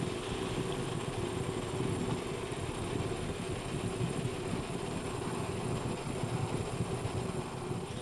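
Glass siphon (vacuum) coffee maker bubbling steadily: water boiling in the lower globe over the methylated-spirit burner sends vapour up the tube, keeping the brew up in the top chamber, with a low, uneven burbling rumble.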